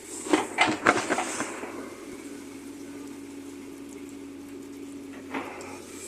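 JCB 3DX backhoe loader at work: a cluster of knocks and clatters in the first second or so, then a steady hum until another knock about five seconds in.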